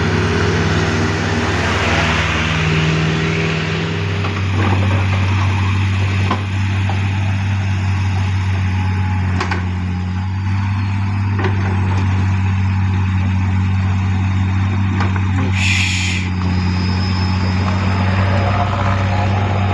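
Heavy diesel engine running steadily with a deep, even hum, with a few scattered knocks and a brief hiss about sixteen seconds in.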